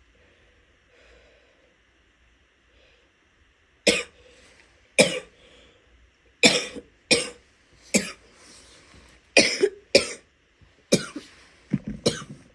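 A woman's wet coughs: after a quiet start, about ten sharp coughs come in quick bursts from about four seconds in, some in close pairs.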